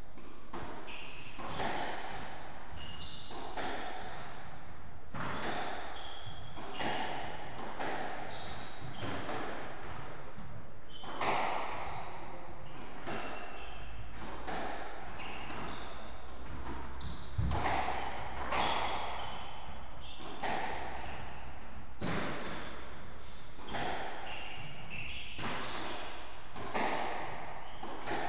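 Squash rally: the rubber ball cracks off rackets and the walls in a steady exchange, sharp knocks about once a second. Between the hits, shoe soles squeak briefly on the wooden court floor.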